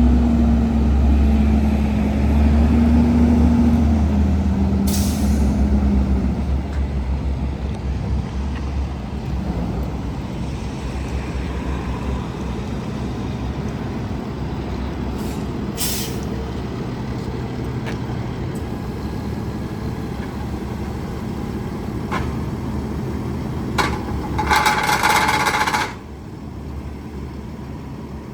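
Diesel engine of a 2016 Freightliner M2 truck running, louder and higher for the first few seconds, then settling to a steadier run. Short air hisses come twice, and a louder two-second sound with a steady pitch comes near the end.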